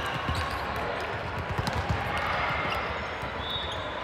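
Balls thudding on a hard gym floor several times over a steady hubbub of a large indoor hall.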